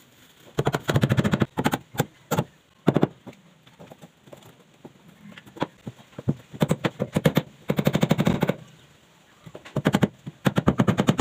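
Claw hammer driving nails into wooden formwork, in several bursts of quick, rapid blows with short pauses between.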